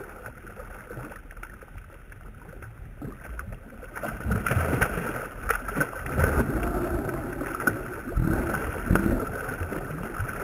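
Water splashing and slapping as a hooked speckled trout thrashes at the surface beside a kayak. The splashing comes in uneven surges that grow louder from about four seconds in.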